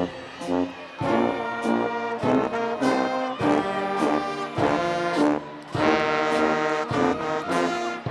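Band music led by brass such as trombones and trumpets, playing a tune in a steady beat with regular drum hits.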